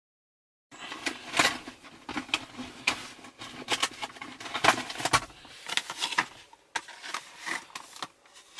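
Plastic and cardboard packaging of a car air-freshener vent-clip pack being handled, with irregular crackles and clicks. It starts under a second in.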